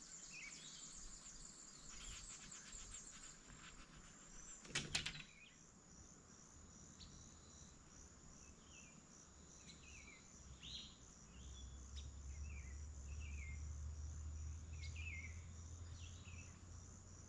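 Quiet bush ambience: a steady high insect trill with small birds giving short, downward-sliding chirps in the second half. A single sharp knock about five seconds in, and a low rumble for a few seconds near the end.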